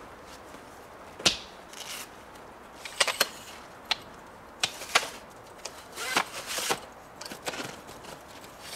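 Telescoping aluminium ladder being pulled open section by section, its sections latching with sharp metallic clicks and clacks at irregular intervals, a dozen or so in all.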